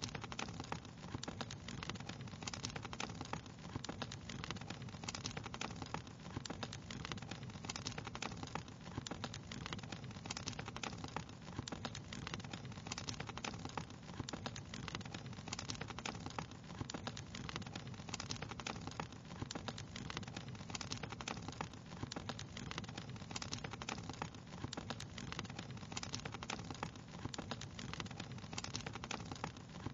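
Wood fire crackling steadily in a fireplace, with dense, irregular pops and snaps over a steady low rumble.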